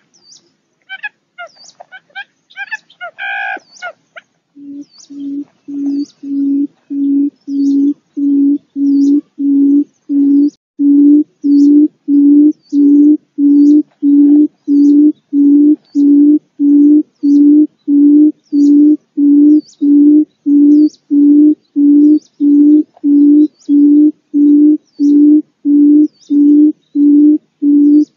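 Calling quail (pugo): a few short high chirps at first, then from about four seconds in a long even series of low hooting notes, about two a second, building in loudness over several seconds and then holding steady.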